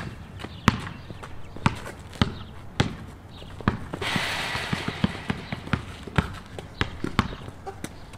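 A basketball dribbled on a concrete court: sharp bounces about twice a second, with quieter taps between. A brief hiss lasts about a second midway.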